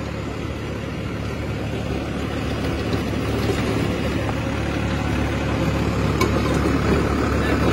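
Farmtrac 60 tractor's diesel engine pulling a deep-set, heavily loaded rotavator, its PTO-driven blades churning dry soil. The engine keeps running steadily under the load without stalling, growing gradually louder.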